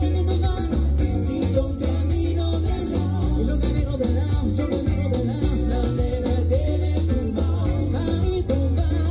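Live Latin dance band playing, with a strong bass line, guitar and a lead vocalist singing.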